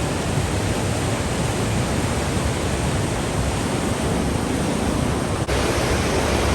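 Flood-swollen Bagmati River rushing in a steady, unbroken wash of churning water, with a momentary dropout about five and a half seconds in.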